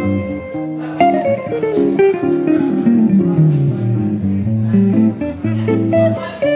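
Epiphone Broadway Elite archtop electric guitar played fingerstyle, chords over a thumbed bass line, with a bass run walking down step by step in the middle.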